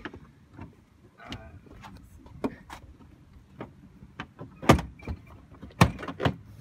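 Plastic trunk trim on a car being worked loose and pulled out by hand: scattered clicks and light knocks, then three sharp, louder knocks in the last two seconds.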